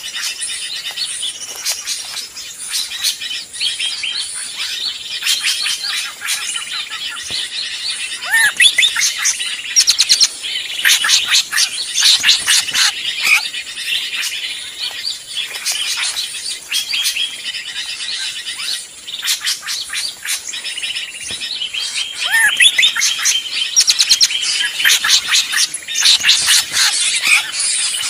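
Bird-lure recording of noisy drongo calls mixed with the chirps of other small birds: a dense, busy chatter of many overlapping high chirps and calls, with a rising whistle twice.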